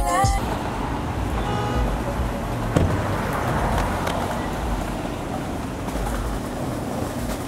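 Hip-hop music cuts off within the first half second. Then comes steady outdoor traffic noise with a low rumble, and a single knock about three seconds in.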